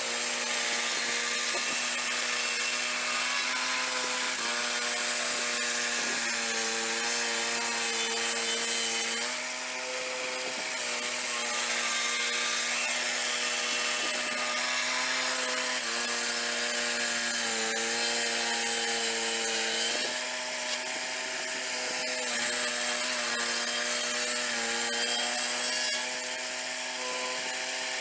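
Swing-blade portable sawmill's engine running at high revs while its circular blade cuts along a log. The engine note sags a little under load twice and picks back up, with the hiss of the blade in the wood over it.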